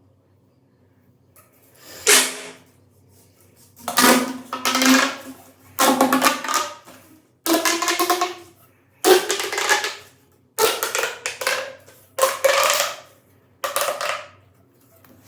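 A run of about eight explosion sound effects, one after another. Each is a sudden burst that rings briefly as it fades, with little deep rumble.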